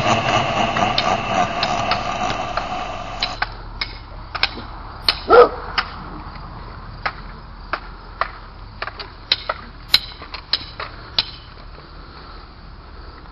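About a dozen sharp clacks and whacks at uneven intervals, sticks striking in a mock stick fight, with one much louder hit about five seconds in. Before them, a steady rattling, clicking sound cuts off abruptly a few seconds in.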